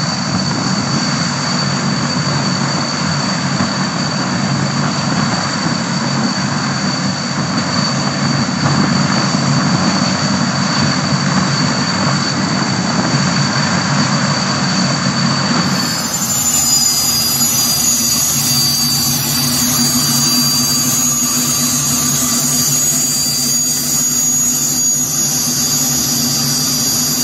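Engines of a twin-turboprop military transport plane running just after being started following ten years out of use: a steady roar with a constant high turbine whine. About sixteen seconds in it cuts to another aircraft's engine noise heard from inside its cabin, steady with a thinner high whine.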